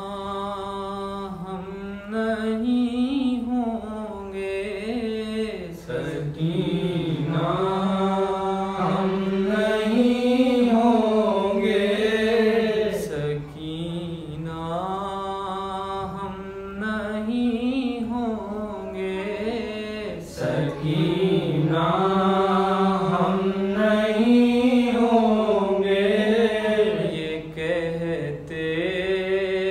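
A man's solo voice chanting a noha, the Shia lament recited for Muharram, unaccompanied. It runs in long held lines that bend up and down in pitch, with short breaths between the phrases.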